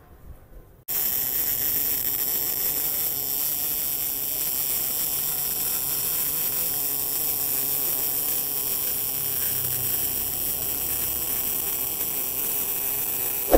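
MIG welding arc from a Tenya Smartmig 265 welder, a steady hiss that starts about a second in and holds even.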